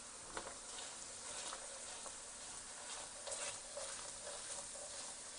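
Ketchup and ginger-garlic paste sizzling in oil in a frying pan, with a spoon stirring and scraping through it in short irregular strokes.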